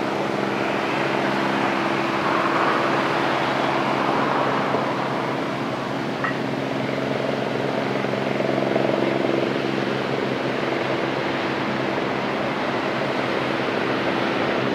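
An engine running steadily: a constant low hum with several fixed-pitch tones, under a wash of outdoor noise, with a small click about six seconds in.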